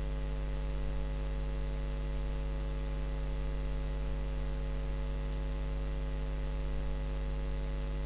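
Steady electrical mains hum: a low drone with a stack of evenly spaced higher overtones, over a faint hiss.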